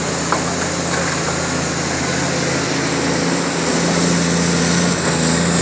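Caterpillar 336 hydraulic excavator's diesel engine running steadily, growing a little louder about four seconds in.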